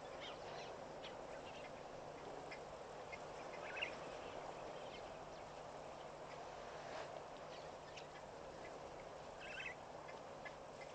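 Faint waterhole ambience: a steady wash of water with scattered short bird calls, including two louder chattering calls about four seconds in and near the end.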